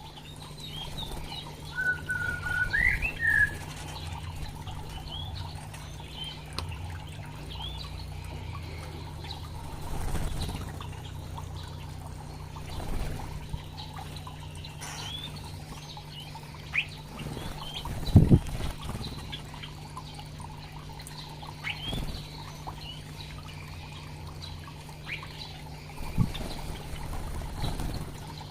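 Small aviary songbirds chirping and calling in short scattered notes, with one rising whistled phrase a few seconds in and the flutter of wings as they fly about. A steady low hum runs underneath, and a few dull thumps come through, the loudest about two-thirds of the way in.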